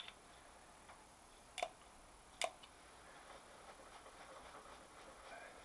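Two sharp metallic clicks, a little under a second apart, as the cross-slide handle of a South Bend 14-1/2 inch lathe is rocked back and forth. The clicks are the cross-slide screw and nut knocking through their play, a sign of worn backlash that needs attention.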